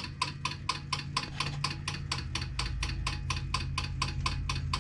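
Rapid, evenly spaced mechanical clicking from a powered-up High Speed pinball machine, about seven clicks a second, over a steady low electrical hum.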